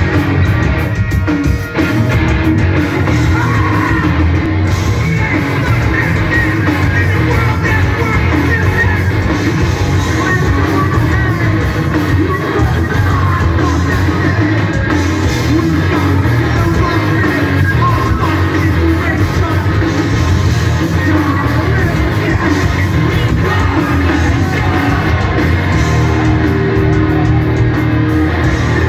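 Hardcore punk band playing live at full volume: distorted electric guitars, bass and a pounding drum kit under shouted, yelled vocals.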